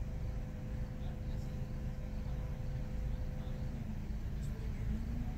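Steady low rumble of an idling car with a faint steady hum, heard from inside the car's cabin.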